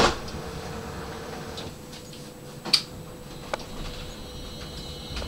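Inside a standing tram: a faint steady hum broken by four sharp clicks, the loudest near the middle.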